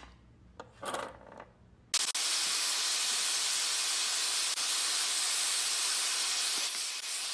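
A vacuum cleaner is switched on about two seconds in and runs with a loud, steady hiss, sucking up dust being knocked off a TV cooling fan. A few light handling taps come before it.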